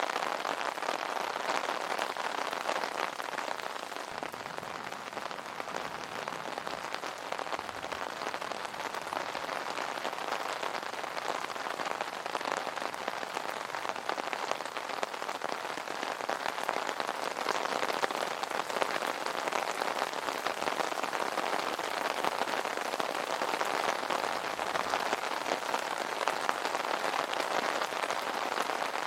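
Steady rain falling on an umbrella canopy: a dense, even hiss of drops with many small ticks.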